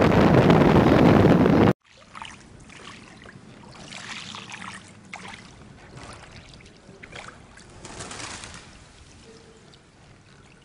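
Wind buffeting the microphone, cut off abruptly about two seconds in. After that, much quieter canal water lapping and sloshing in small irregular splashes.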